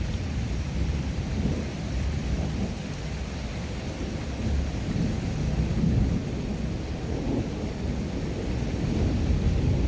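Continuous low rumbling noise that wavers in level without stopping.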